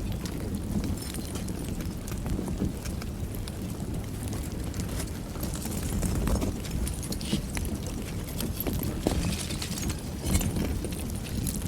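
Kilauea lava flow with its cooling crust crackling and clinking in many irregular small cracks over a steady low rumble.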